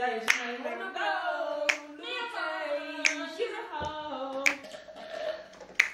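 A woman singing unaccompanied in long, gliding held notes, with a sharp clap or snap from her hands about every one and a half seconds keeping the beat.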